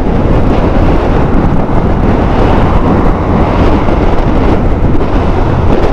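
Loud, steady wind noise on the microphone of a TVS Apache RTR 160 4V motorcycle being ridden at road speed, with the ride's engine and road noise mixed in.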